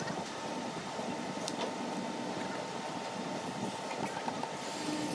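Steady background noise with a thin constant tone, and a few light clicks as steel bar clamps are handled on a chair frame.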